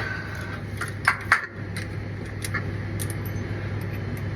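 Small metal hardware being handled, with two sharp clicks a little over a second in and a few fainter ticks later, over a steady low hum.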